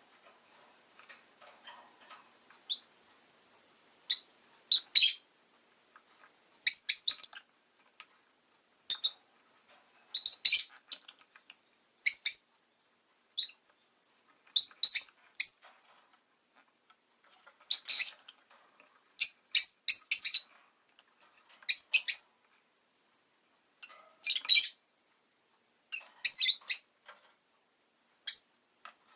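Rosy-faced lovebird giving short, sharp, high-pitched chirps in quick clusters every second or two, beginning a few seconds in.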